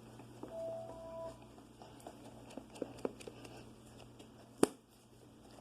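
Small clicks and taps from handling containers, with one sharp click near the end, over a faint steady hum.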